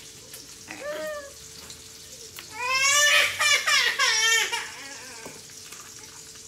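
A baby crying out: a short whimper about a second in, then a loud, high wailing cry lasting nearly two seconds from about three seconds in. Bacon frying faintly sizzles underneath.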